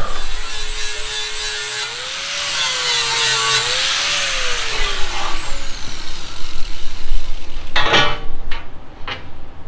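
Angle grinder with a flap disc working a steel truck frame rail: a noisy grinding with a whine that rises and falls under load, then a falling whine as the grinder winds down. Near the end come a few sharp metal clanks.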